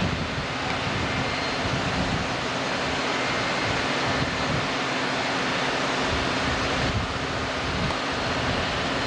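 Steady hum and hiss of a standing Amtrak passenger train idling at the platform, with wind buffeting the microphone.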